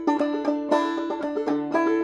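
Open-back banjo played clawhammer style: a quick, even run of bright plucked notes that ring on under one another.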